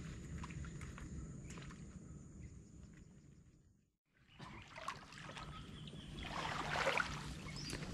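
People wading through swamp water, legs sloshing and bodies brushing through reeds and grass, getting louder about six seconds in. Before that, a steady high insect drone with bird chirps fades to a moment of silence about four seconds in.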